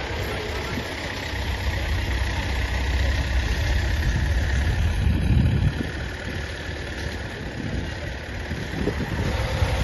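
An engine running steadily with a low rumble, swelling briefly about five seconds in.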